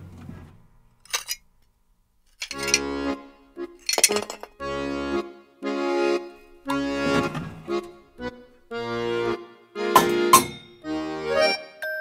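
Accordion music playing short chords in bouncy phrases, starting about two and a half seconds in after a brief near-silent pause, with a couple of sharp clicks among the notes.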